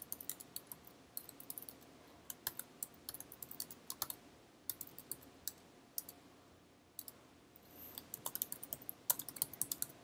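Quiet computer keyboard typing in quick bursts of key clicks, with a pause of about two seconds past the middle.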